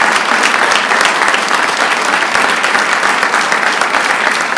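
An audience applauding loudly and steadily, many hands clapping at once.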